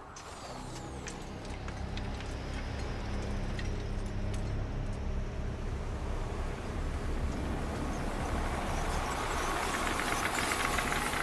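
Swelling rush of a massive volley of arrows flying in: a low rumble that grows steadily louder, topped near the end by a rising hiss as the arrows close in.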